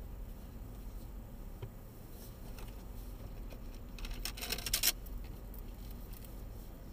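Low steady rumble of a car rolling slowly at parking-lot speed, heard from inside the cabin, with a few faint clicks and a short burst of crackling clicks about four seconds in.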